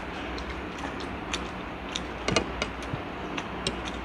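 Forks clicking and scraping against a plate of instant noodles during eating: scattered short clicks, a small cluster of louder ones a little past two seconds in, over a steady low background hum.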